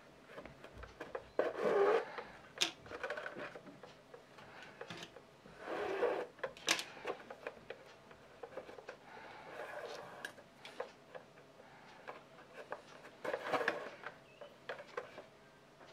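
Hand leatherwork at a bench: three rubbing, scraping passes, with small clicks and taps between them.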